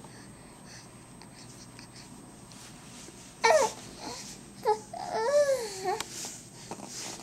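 Baby vocalizing in high-pitched squeals. A sharp, loud one comes about three and a half seconds in, a short one follows, then a longer wavering call rises and falls in pitch for about a second.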